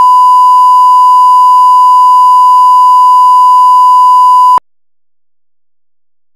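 Loud, steady 1 kHz reference tone of the kind played with television colour bars. It holds one unchanging pitch and cuts off suddenly about four and a half seconds in.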